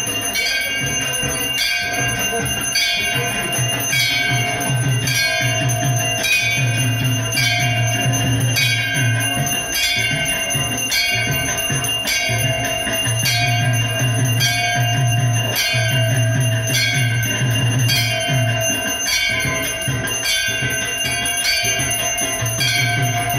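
Brass temple bells hanging from the ceiling, rung steadily by a rope during aarti at a little under two strokes a second, each stroke ringing on into the next. Under the bells a low hum swells and fades every few seconds.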